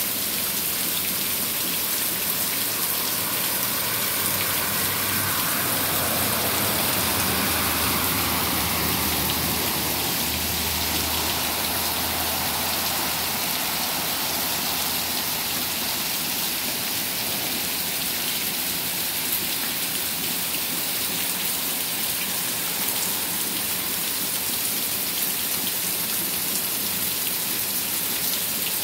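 Heavy rain pouring steadily onto lawn, pavement and a flooded street. In the first half, a vehicle driving through the standing water adds a low rumble and a splash that swell and fade.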